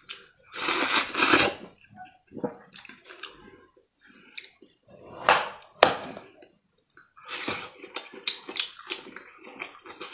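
A person eating fatty boiled meat by hand, with wet slurping and lip-smacking, a sharp knife stroke on a wooden tray about six seconds in, and a run of quick smacking chews near the end.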